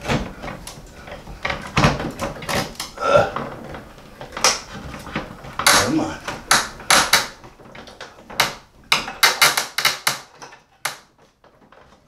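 Repeated plastic clatter and knocks as a blower fan motor is forced at an angle into the plastic mounting of an LG mini-split indoor unit. The knocking comes irregularly, thins out and stops about a second before the end.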